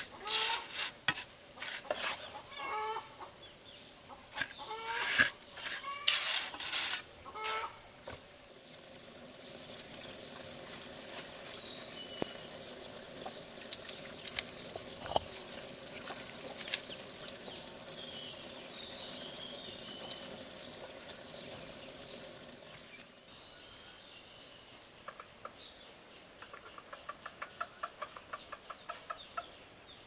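Chickens clucking in short, bending calls for the first several seconds. This gives way to a steady hiss, and near the end comes a quick run of faint ticks.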